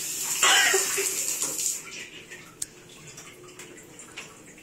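Electronic bidet toilet seat's wash nozzle spraying a jet of water that splashes down, loud for about the first two seconds and then much quieter.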